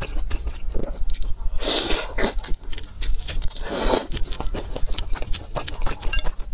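Close-miked eating of a soup-soaked fried dumpling: wet chewing and quick mouth clicks, with two longer, louder wet mouth sounds about two and four seconds in.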